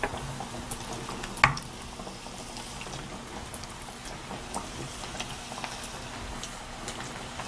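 Battered squid pieces deep-frying in hot oil: a steady sizzle with scattered crackles and pops, one sharper pop about one and a half seconds in. The pops come from moisture inside the squid meeting the oil.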